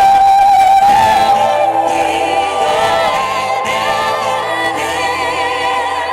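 Layered a cappella vocals built up live on a looper: several long, wordless sung notes held over one another, some wavering.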